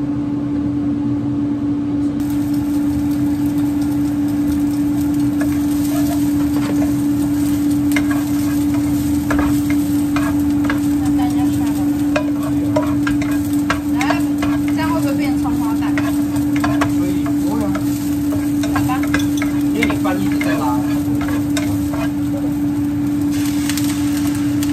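A wooden spatula scrapes and taps in a nonstick frying pan as chopped green onions sizzle over a gas burner, over a steady low hum. Near the end the hiss brightens as beaten egg is poured into the hot pan.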